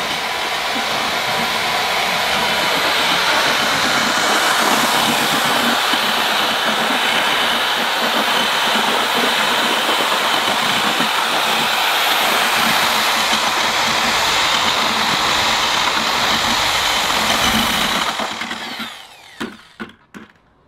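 Handheld drill-style paddle mixer running steadily as it stirs self-leveling cement topping in a 5-gallon pail, the mix being timed. About 18 seconds in it winds down and stops, followed by a few light knocks.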